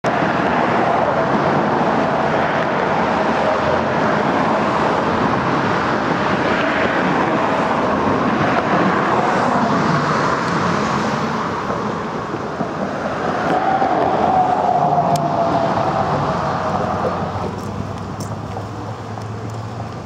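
Steady road traffic: the running noise of passing cars, with one car going by a little past the middle, its pitch dropping as it passes. The noise eases off somewhat near the end.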